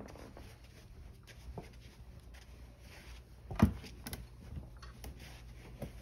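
Quiet room with a few soft knocks and one louder, short thump about three and a half seconds in.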